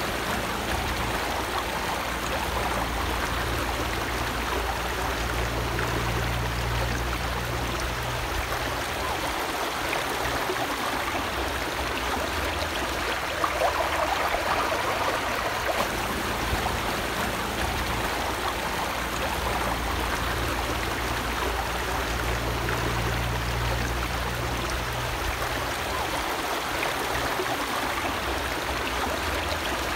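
Shallow river flowing steadily over a pebbly, rocky bed, a continuous rushing and rippling; a little louder and more splashy about fourteen seconds in.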